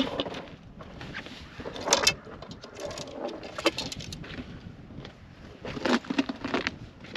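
Boots stepping and scuffing on a plywood platform laid on the ice, with irregular knocks and clatter of handled gear, the loudest cluster about two seconds in.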